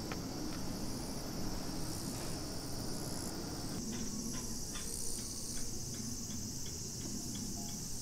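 Summer insects shrilling in a steady high-pitched chorus with a slight pulse, over a low background hum. A run of faint short clicks comes in the second half.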